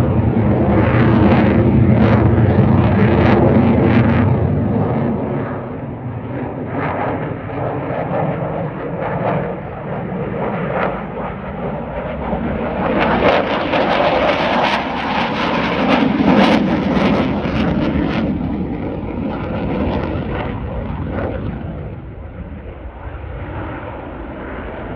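Jet engine noise from a military display jet flying overhead. It is loud at first, eases off, swells again about halfway through as the jet makes a low pass, then fades as it climbs away.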